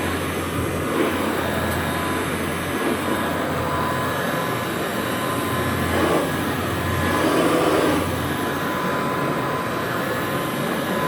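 Rebuilt 1957 Kirby Model 517 upright vacuum cleaner running steadily, its motor giving a constant whine over a rushing air noise. The sound swells briefly a little past halfway.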